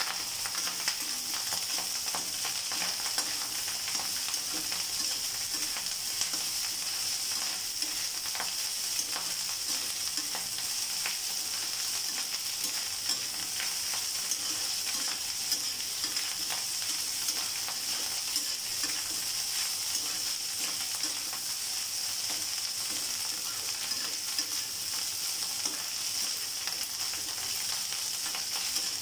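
Fried rice sizzling steadily in a metal kadai while a spatula stirs it, with frequent short scraping clicks of the spatula against the pan over the hiss.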